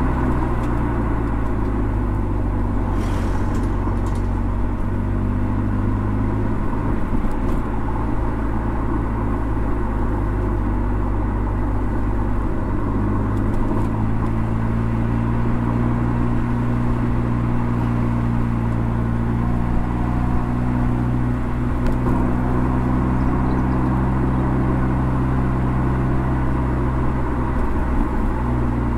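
Mercedes-AMG CLA45's turbocharged four-cylinder engine running under way at a fairly steady speed, its pitch drifting slightly up and down, over steady tyre and road rumble.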